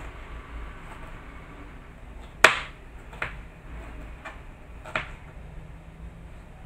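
Kitchen knife slicing a yellow bell pepper into strips on a plastic cutting board: four sharp taps of the blade striking the board, the first, about two and a half seconds in, the loudest, over a low steady hum.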